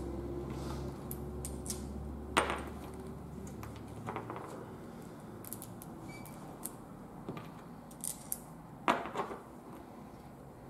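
Small bolts and Teflon and steel washers clicking and clinking as they are picked up, slid together and set down on a wooden workbench, with a sharper knock about two seconds in and another near the end.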